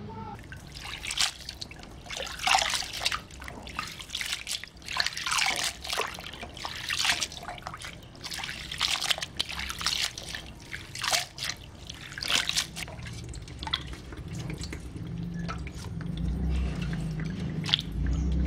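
Hands swishing and rinsing leafy greens in a basin of water: irregular splashes and sloshes with short pauses. Toward the end the splashing dies down and a steady low hum comes in.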